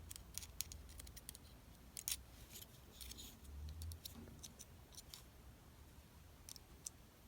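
Faint, scattered small clicks and taps from handling the electric kettle's thermostat contact switch and its metal parts, with a slightly louder cluster of clicks near the end.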